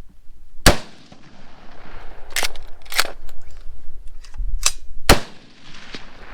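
Five gunshots, unevenly spaced, each with a short echo; the loudest come about a second in and about five seconds in.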